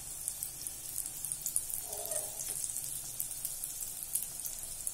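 Banana-flower kola urundai balls deep-frying in hot oil in a steel kadai: a steady sizzle with fine crackling pops.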